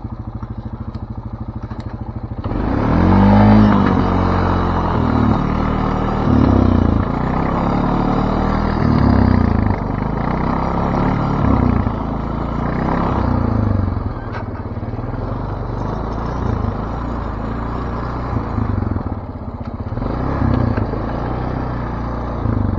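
ATV engine idling, then about two and a half seconds in it revs up as the quad pulls away, its pitch rising and falling with the throttle as it rides over packed snow. Later it settles to a steadier, quieter run.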